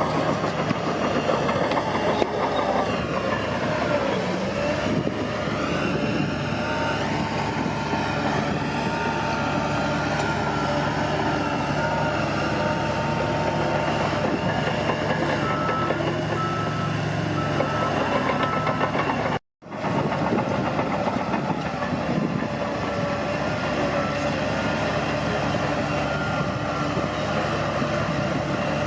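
Bulldozer's diesel engine running steadily. A reversing alarm beeps for a few seconds around the middle. The sound cuts out briefly about two-thirds through.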